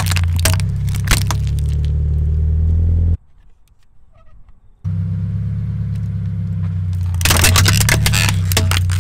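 A car's engine running steadily at low speed as its tyre rolls over hard plastic toys. There are a few sharp cracks in the first second as plastic eggs are flattened, and a quieter break after about three seconds. Near the end comes a dense burst of cracking and crunching as the tyre crushes a plastic toy house.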